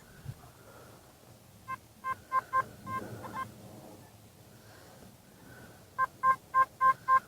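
Metal detector giving short electronic beeps as it is swept over a target: a few scattered beeps, then from about six seconds a fast regular run of about three a second. The signal is jumpy and unstable, which the detectorist reckons might be iron.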